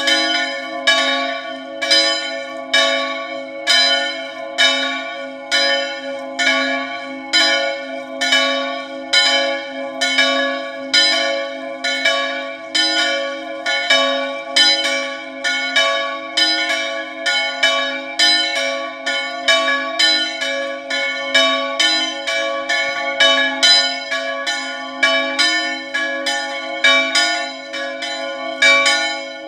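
Two swinging church bells, tuned D and F (cast by Pasquale Marinelli of Agnone and Peppino Mari), ringing a festive full swing peal. Their clappers strike over and over, about one loud stroke a second with other strokes in between, and the ringing of each blow overlaps the next. Only the two smaller bells ring because the largest bell's motor is broken.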